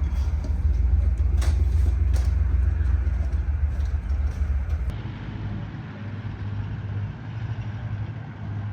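A vehicle driving on the road: a steady low rumble of engine and road noise. About five seconds in it gives way abruptly to a quieter, steady low hum.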